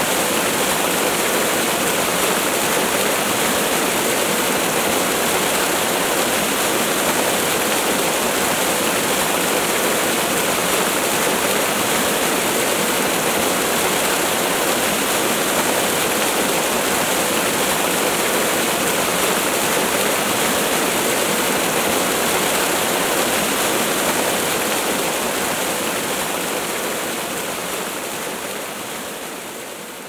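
Waterfall: a steady rush of falling water, fading out over the last several seconds.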